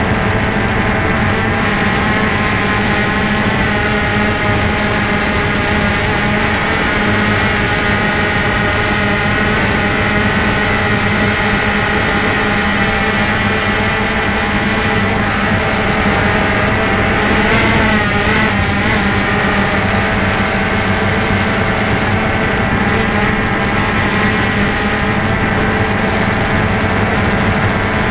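DJI Phantom 2 quadcopter's electric motors and propellers buzzing steadily in flight, heard close up from the camera on board; the pitch wavers briefly about two-thirds of the way through as the throttle changes.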